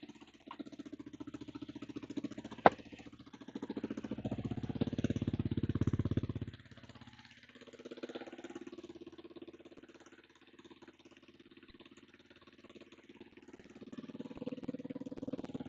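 Kawasaki KLR250's single-cylinder four-stroke engine idling on the enrichener, with an exhaust blow at the manifold, swelling louder for a couple of seconds about four seconds in and again near the end. A single sharp click about three seconds in.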